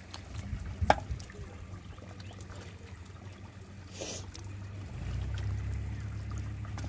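Wet mud and live fish being handled in a woven bamboo basket: soft wet trickling and squelching with small clicks, and one sharp click about a second in. A low steady rumble runs underneath, louder in the second half.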